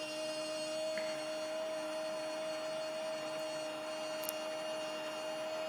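A steady electronic hum: one unchanging tone with a weaker lower tone beneath it and a faint high whine, no pitch movement.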